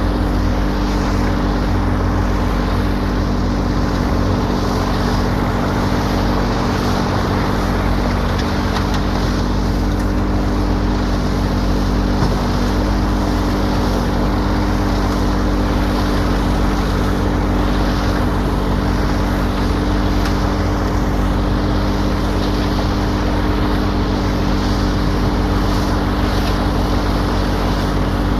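An engine running steadily at a constant speed: an even, unchanging drone.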